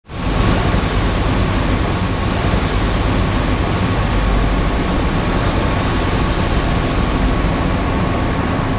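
Steady, loud rushing hiss with a low rumble and a faint steady whine, the ambience of pressurised pipework and machinery. It fades in at the start and holds even throughout.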